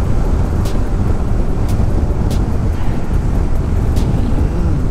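Motorcycle riding at speed: a steady, heavy rush of wind buffeting the microphone over the road noise.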